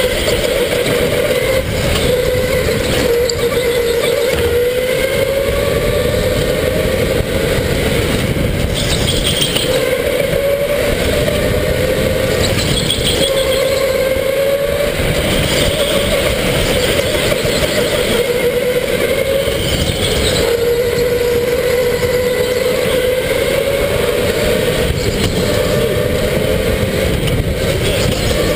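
Electric go-kart motor whining under way, its pitch rising and falling with speed through the corners, over a steady rushing noise.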